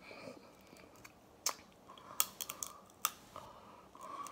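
Eating crab legs: a few sharp cracks of crab shell being broken, with chewing in between.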